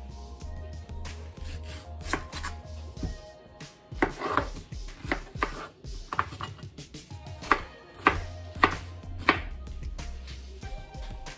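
Large kitchen knife slicing through peeled pineapple and knocking on a cutting board, a dozen or so sharp chops at irregular intervals, the loudest in a run about two-thirds of the way through.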